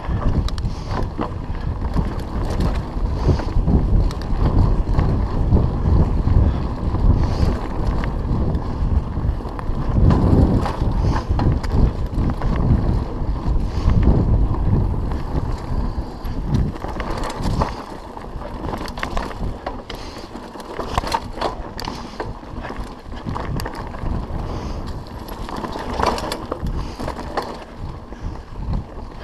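Mountain bike riding along dirt singletrack: wind buffeting the microphone over a low rumble of tyres on dirt, with many small clicks and rattles from the bike. Louder through the first half, easing off after about 17 seconds.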